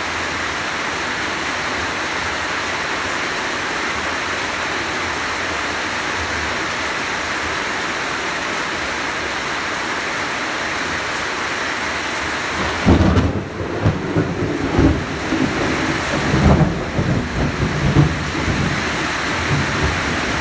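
Heavy rain falling steadily. About two-thirds of the way through, thunder rumbles in several loud, uneven swells for roughly six seconds.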